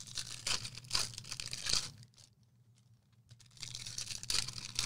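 Card box packaging being torn open: plastic wrap and foil crinkling and tearing in two spells with a short pause between them.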